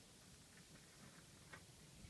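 Near silence: faint outdoor background hiss with a few soft ticks, the clearest about one and a half seconds in.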